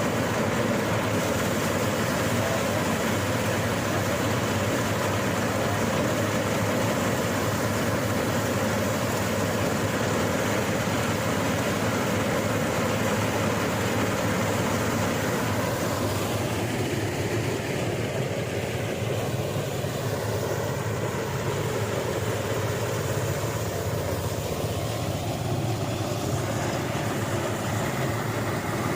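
Engine-driven rice threshing machine running steadily, its tone thinning slightly a little past halfway.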